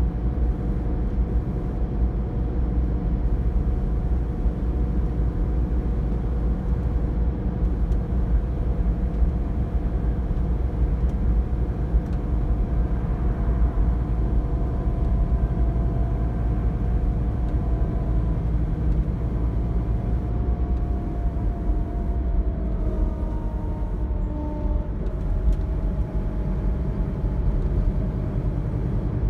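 Cabin noise inside a Van Hool TX16 Alicron coach on a Scania K360 chassis: the steady rumble of the rear-mounted engine and road noise. Several whining tones from the engine and drivetrain slowly fall in pitch from about halfway through.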